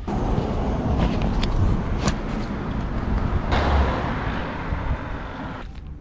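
Road traffic: cars passing on a busy street, a steady rush of tyre and engine noise with a louder pass about three and a half seconds in. The sound stops abruptly shortly before the end.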